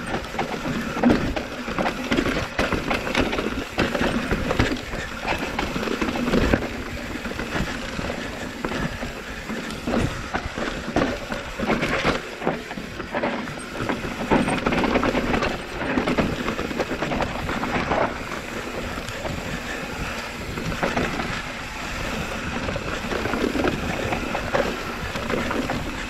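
Canfield Brothers EPO hardtail mountain bike being ridden down a trail: steady tyre rumble on dirt, with frequent knocks and rattles from the bike over bumps.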